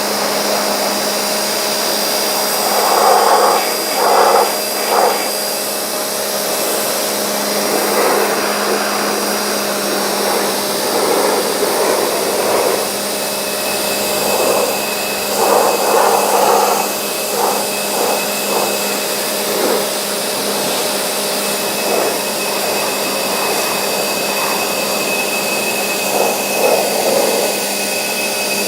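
Vacuum cleaner running continuously with a steady motor whine, with surges of rougher noise every few seconds.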